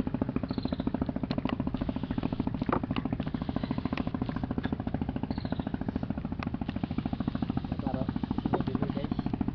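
A small engine running steadily with a fast, even putter, with a few light clicks over it.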